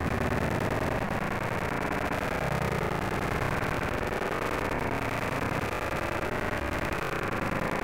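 Steady noise of rain falling during a thunderstorm, with no distinct thunderclap.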